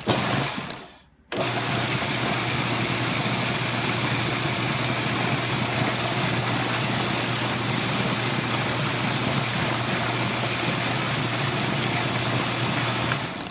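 Electric food processor blending a thick habanero pepper, onion and carrot purée. A short pulse at the start spins down, then after a brief pause the motor runs steadily for about twelve seconds and stops suddenly near the end.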